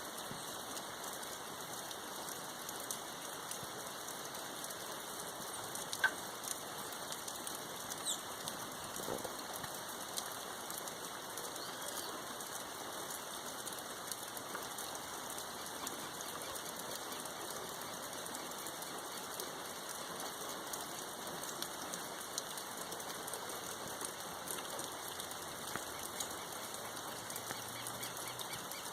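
Steady rain falling, with scattered drops tapping and a sharper tap about six seconds in.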